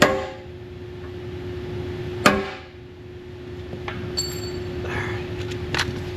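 Hammer striking a punch on the steel blade skid to mark a pilot hole: two sharp ringing metal blows about two seconds apart, then a few lighter taps, over a steady hum.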